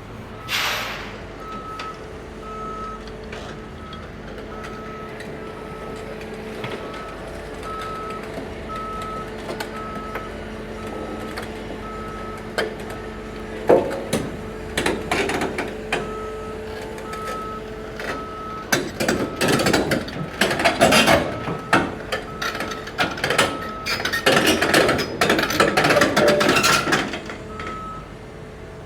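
Cat 325 excavator's travel alarm beeping steadily at an even pace over the running engine while the machine tracks. Through the second half its steel tracks clank and squeal loudly.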